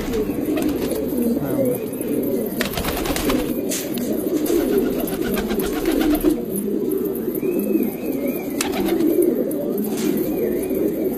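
A flock of domestic pigeons cooing, many calls overlapping into one continuous low burble.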